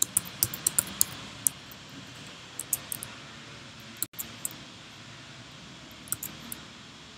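Keystrokes and clicks of a computer keyboard and mouse during text editing: a quick run of key taps at the start, then short clusters of clicks every second or two, over a steady low hiss.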